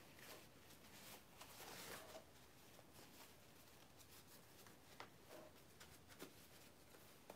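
Near silence with faint rustling of fabric as a sewn dog coat is handled and worked right side out, a little louder between about one and two seconds in, and a couple of small ticks near the end.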